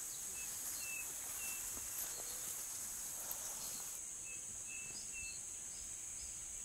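Outdoor ambience in tropical pasture: a steady, high-pitched insect drone, with a few short, high bird chirps scattered through it.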